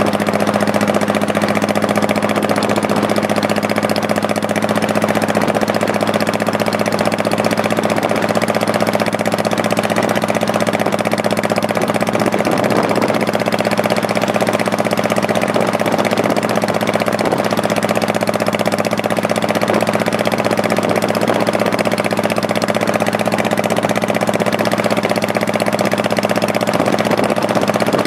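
Honda Shadow Spirit 1100's V-twin engine running at a steady speed while the motorcycle is ridden, its note holding the same pitch over a steady hiss.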